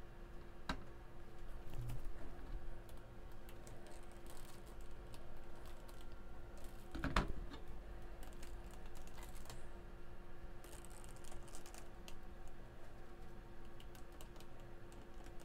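Faint clicks and taps of handling: plastic paint cups and flat canvas panels knocked on a wire rack. A sharper knock comes about seven seconds in, over a faint steady hum.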